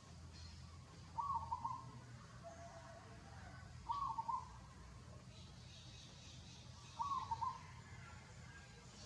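A bird calling: a short, quavering phrase repeated three times, about every three seconds.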